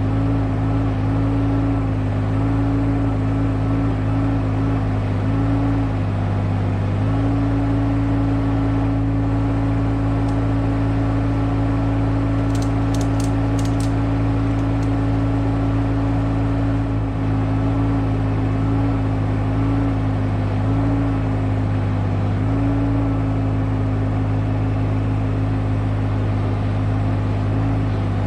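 IHI 20NX mini excavator's diesel engine running steadily while digging, its note dipping briefly a few times as the hydraulics take load. A few light clinks about halfway through.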